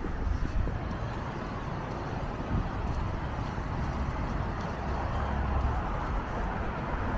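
Steady city traffic noise: a continuous wash of road noise with a low rumble, without distinct events.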